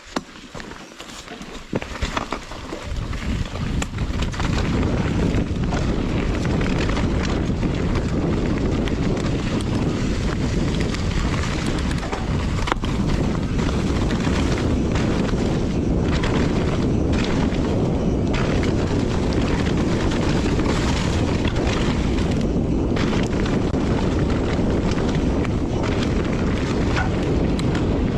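Wind rushing and buffeting over the microphone, mixed with the knocks and rattle of a Santa Cruz Nomad mountain bike riding fast down a dirt jump trail. It builds up over the first few seconds as speed picks up, then holds steady with scattered sharp knocks from bumps and landings.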